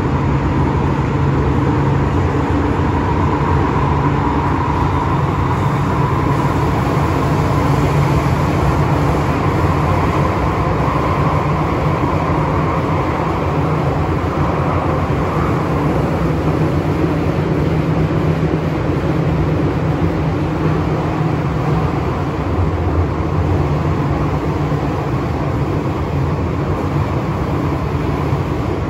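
Interior running noise of an MTR M-Train electric multiple unit in motion: a steady loud rumble of wheels on rail and traction equipment, with a faint whine from the traction motors.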